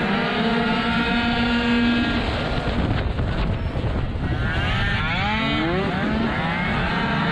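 Small two-stroke racing scooter engines running at high revs: a steady high-pitched note, a rougher, lower patch from about two seconds in as the throttle eases, then climbing in pitch around five seconds in as the throttle opens again. Other scooters' engines close by overlap at different pitches.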